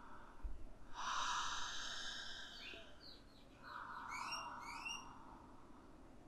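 A woman breathing deeply and audibly through the mouth: two long breaths, the first the louder, with a few short bird chirps in the middle.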